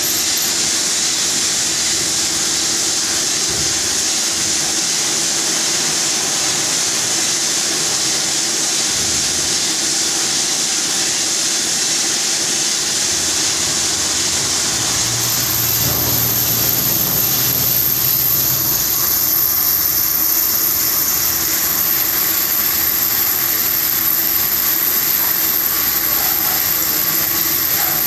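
CNC vertical machining centre (VMC) cutting metal under flood coolant: the spindle and tool run steadily in a loud machining noise with coolant spray hiss and a held hum, and a high thin whine joins about halfway through. The machinists put the noise down to a worn, burnt cutting insert.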